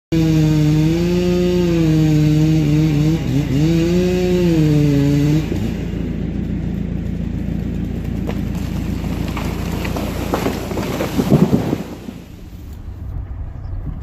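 Chainsaw running hard in a cut, its pitch wavering as it loads and unloads; after about five seconds the engine sound drops away. A burst of loud cracks follows around ten to eleven seconds in.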